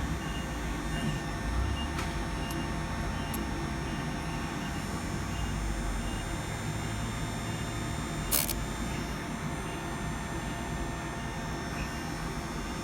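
Electric chainsaw chain sharpener's grinding-wheel motor running with a steady hum, with one sharp click about eight seconds in.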